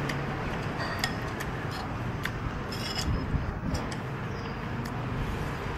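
Steady background noise of traffic and a busy eatery with a low hum, broken by several light clinks of tableware such as utensils against a ceramic bowl.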